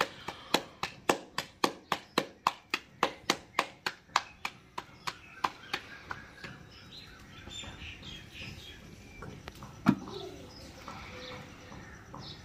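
Hands slapping paratha dough flat between the palms, about three slaps a second, slowing and stopping about halfway through. Birds then chirp, and there is a single thump a little before the end.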